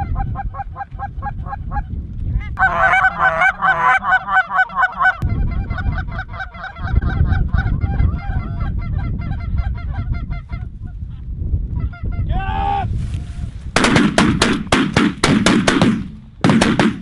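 Geese honking, a rapid run of calls repeated several times a second, overhead as the flock comes in. About fourteen seconds in, a volley of shotgun shots from several guns breaks out, a quick string of sharp blasts with two more near the end.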